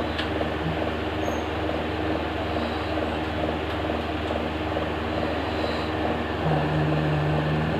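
Steady background noise: an even hiss over a constant low electrical hum. A steady low tone joins about six and a half seconds in.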